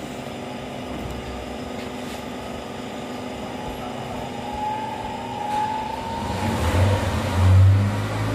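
Sandblasting cabinet at work: a steady hiss of compressed air driving abrasive grit onto a turbocharger housing. A low engine-like drone grows louder near the end.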